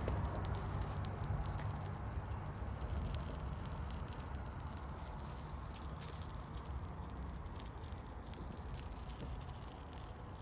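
Burning circuit board of an old TV cable converter box crackling softly: faint scattered ticks over a low rumble, fading gradually.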